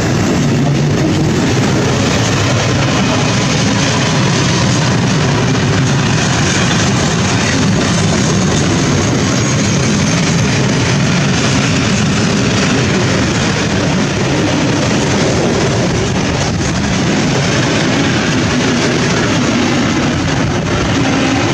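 Freight train of open-top gondola wagons rolling past at close range: a loud, steady noise of wheels on rails and rattling wagons.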